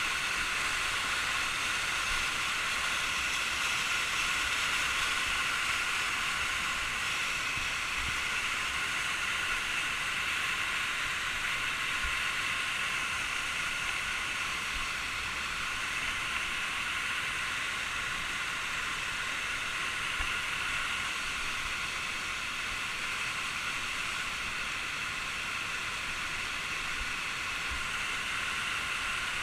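Waterfall rushing steadily: an even hiss of falling water with no change in level.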